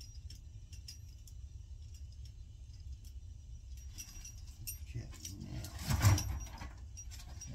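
Metal tools and parts clinking and rattling as they are handled, getting busier about four seconds in, with a louder clatter about six seconds in, over a low steady hum.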